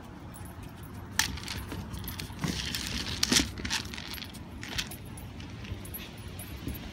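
Kong Wobbler being nosed and tipped by a dog on a wooden deck: dry kibble rattling inside the hard plastic toy, with sharp clacks as it rocks and knocks on the boards, the loudest a little past the middle.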